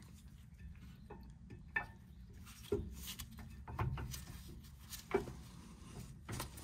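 A handful of light metallic clicks and knocks, spread out, as a brake caliper is set over new brake pads onto its bracket and a tool is fitted to a caliper pin.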